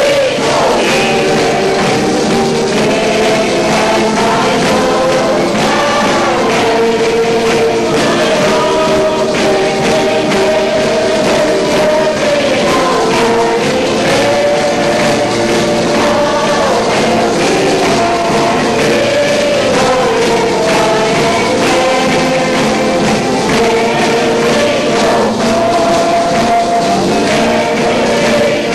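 Choir singing a slow gospel hymn with long held notes over a steady musical accompaniment.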